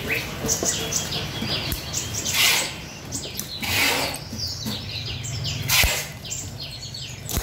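Many small cage birds chirping with short, high calls. Three louder bursts of wing flutter come about two and a half, four and six seconds in, as birds are handled.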